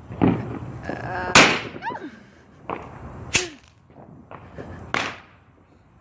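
Firecrackers going off one at a time: three loud sharp cracks roughly a second and a half apart, with smaller pops between them.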